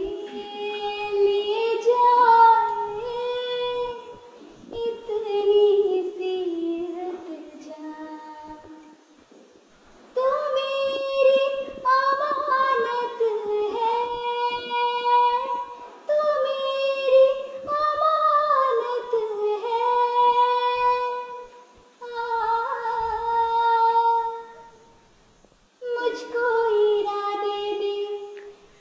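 A young girl singing a song solo and unaccompanied, in phrases of a few seconds with long held notes and short pauses for breath between them.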